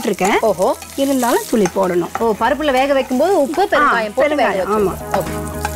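Tempering of urad dal, cumin and green chillies sizzling in hot ghee and oil in a nonstick kadai while a spatula stirs it. A wavering, voice-like pitched sound runs over the frying.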